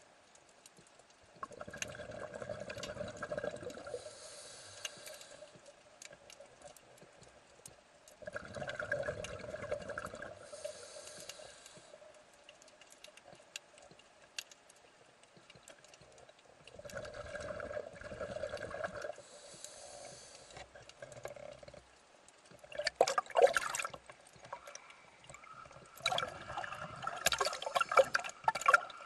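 Scuba diver breathing through a regulator underwater: a bubbling rumble of exhaled air about every seven to eight seconds, three times, each followed by a shorter hiss. Near the end comes louder rough crackling and splashing noise.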